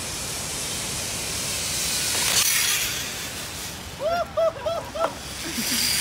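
Steady rushing noise of river rapids, swelling briefly about two and a half seconds in. About four seconds in, a person's voice gives a quick run of about five short cries.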